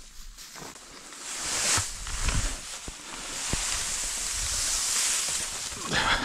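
Dry cut hay rustling and swishing close by as it is raked and gathered with a wooden-handled hay tool. The sound swells after about a second and stays up, with a few dull knocks.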